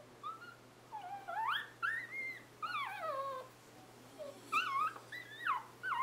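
Newborn Scottish Terrier puppies whimpering and squeaking: a string of high, wavering cries that slide up and down in pitch, with a short lull past the middle before more cries follow.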